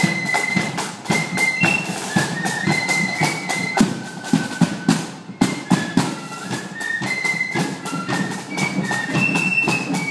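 Marching flute band playing a high, stepping melody in unison, with drums beating a steady march time underneath.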